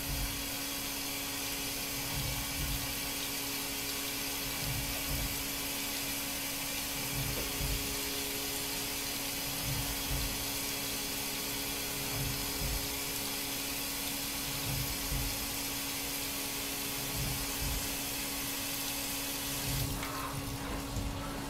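Fadal 4020HT CNC vertical mill running with coolant flowing: a steady watery hiss over a steady machine hum, with soft low thumps every second or two. The hiss cuts off near the end while the hum carries on.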